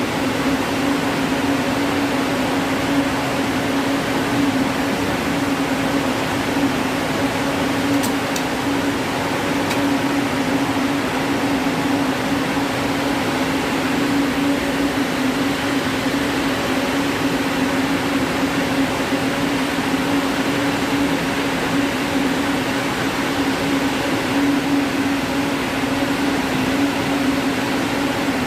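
Roving frame and the spinning-mill machinery around it running: a loud, steady machine noise with a constant low hum.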